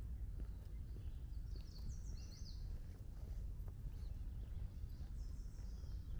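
Steady low outdoor rumble with songbirds calling: a run of quick, high, downward-slurred chirps about two seconds in and another near the end, over faint footsteps on a paved path.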